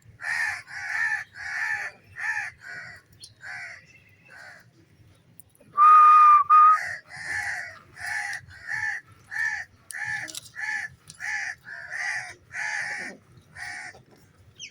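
Pet green parrot squawking in a long run of short, harsh calls, about two or three a second, with a loud, steady whistle about six seconds in.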